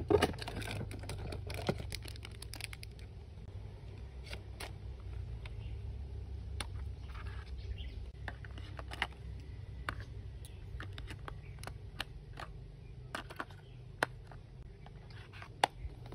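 Hands handling a plastic toy rifle and its cardboard box: scattered clicks, taps and rustles of plastic and cardboard, with a louder knock at the very start, over a low steady hum.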